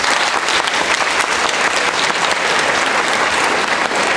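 A large group of people applauding, a dense, steady clapping.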